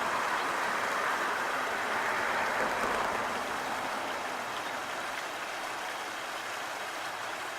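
Steady rush of stream water, a little fuller in the first few seconds and then easing slightly.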